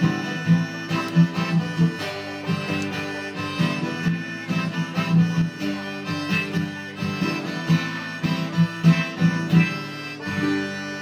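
Live acoustic music: strummed acoustic guitar and picked banjo under a pitched lead melody, the song winding down and fading near the end.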